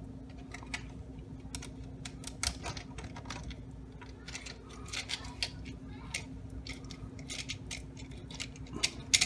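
Light clicks and taps of 3D-printed plastic parts being handled and fitted together by hand: an idler pulley and its clamp pushed onto a plastic rail and the carriage block slid along it, with a couple of sharper clicks near the end.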